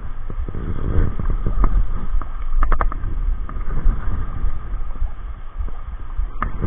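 Wind buffeting the microphone in an uneven low rumble, with a quick cluster of sharp clicks a little under three seconds in.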